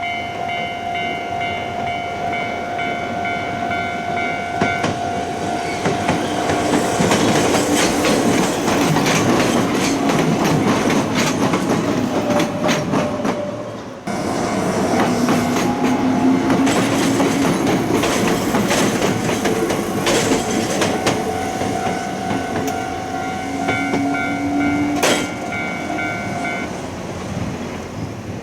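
Japanese railroad crossing's warning bell ringing, then a train running over the crossing with rapid wheel clatter on the rails and a low motor whine that slides in pitch. About halfway the sound breaks off abruptly and the train noise resumes. The crossing bell rings again near the end, with one sharp click.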